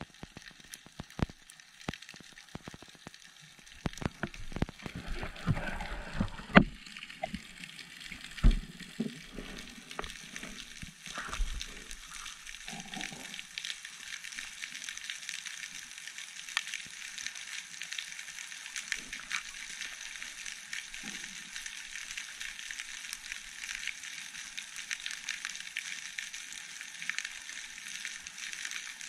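Underwater ambience heard through a camera housing: a steady, dense high crackling, typical of snapping shrimp on a Mediterranean reef, broken in the first dozen seconds by several sharp knocks and dull thumps, the two loudest about six and eight seconds in.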